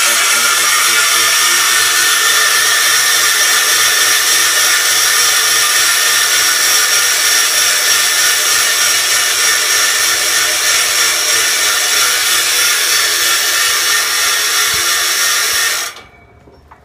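A power tool running steadily and loudly with a hissing whir, cutting off abruptly near the end.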